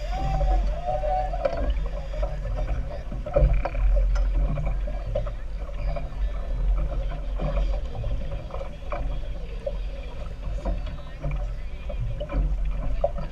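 Speedboat running at speed: a steady low rumble of engine and water, with occasional sharper knocks.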